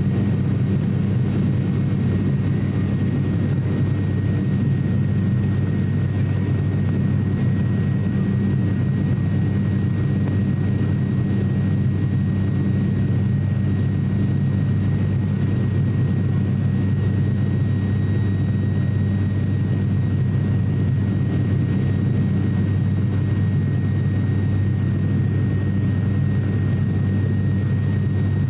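Cabin noise of an ATR 42-600 turboprop in flight, heard beside its Pratt & Whitney PW127 engine and propeller: a loud, steady low drone with a thin steady high whine above it.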